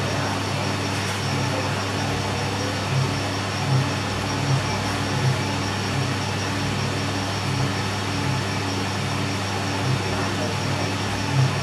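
Drum coffee roaster running: a steady machine hum with a soft pulse recurring about every three-quarters of a second.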